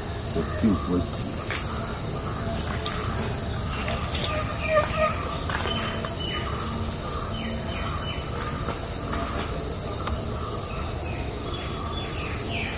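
Insects keep up a steady high-pitched drone, with scattered short bird chirps and a few faint clicks over it.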